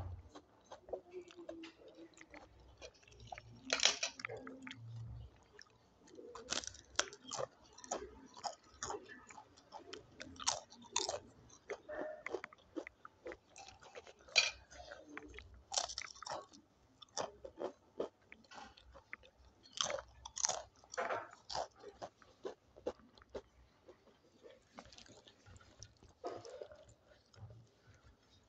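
A person eating close to the microphone: crunchy bites and chewing from a meal of dal, rice, papad and salad, with many sharp, irregular crunches throughout.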